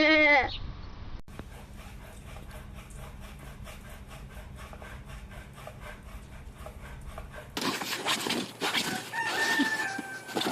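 A goat's bleat trails off at the very start, then a quieter stretch of fast, even ticking. Near the end a rooster crows: one held call, falling slightly in pitch.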